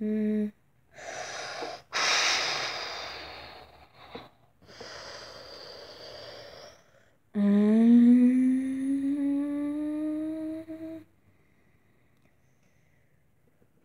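A person making vocal sound effects: several breathy, hissing exhalations, then a long, loud hummed note that slowly rises in pitch and stops abruptly, followed by quiet.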